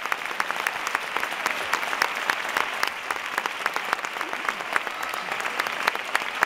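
Audience applauding: many people clapping steadily and densely throughout.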